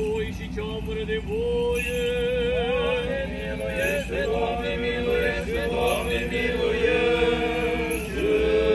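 Orthodox clergy chanting a funeral hymn, several male voices holding long, wavering notes, with a lower part joining near the end.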